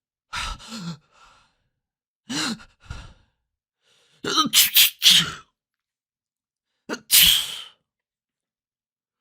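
Human sneezes, one after another with silent gaps between: about four separate sneezes, each a short drawn-in 'ah' then a sharp noisy 'choo'. The third is a quick run of about four sneezes in a row.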